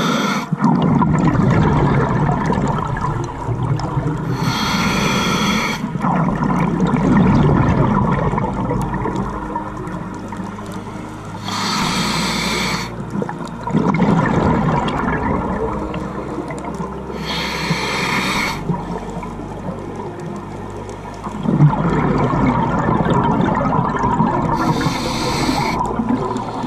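A scuba diver breathing through a regulator, heard underwater: about every six or seven seconds a gurgling burst of exhaled bubbles, four in all, with a low rumbling water noise in between.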